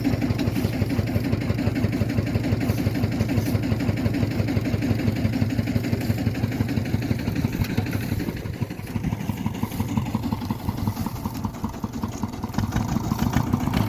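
A rice washing machine's small engine running steadily with a fast, even beat. It eases off slightly about eight seconds in and picks up again near the end.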